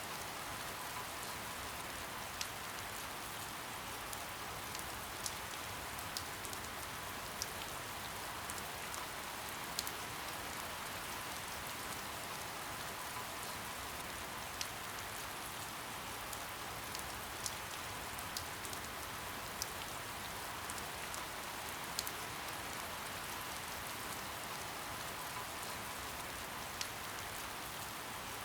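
Soft, steady rain falling, a continuous hiss with scattered sharper drop ticks every second or so.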